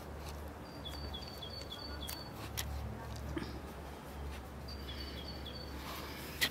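A small bird calling in two runs of short, quick chirps, about four or five notes each, over a steady low rumble. There are a few sharp clicks, the loudest near the end.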